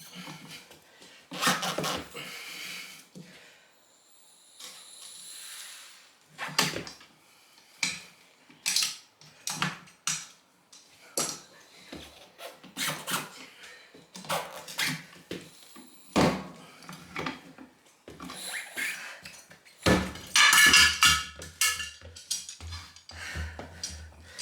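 Irregular metal knocks and clanks of hand tools working on a steel wheel and its tyre, many separate strikes a second or so apart, with a louder, rougher stretch about twenty seconds in.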